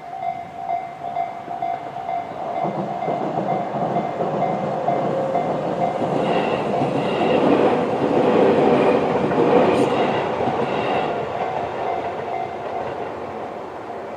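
Electronic level-crossing warning bell (Tobu 'type C' tone) ringing in a steady repeating pulse while a Tobu 20400-series electric train passes. The rumble of the train builds, is loudest about 7 to 10 seconds in, then fades away.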